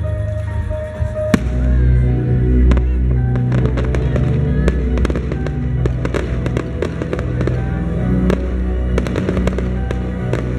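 Fireworks going off in a rapid string of sharp bangs and crackles, coming thicker after the first few seconds, over music with long held low notes.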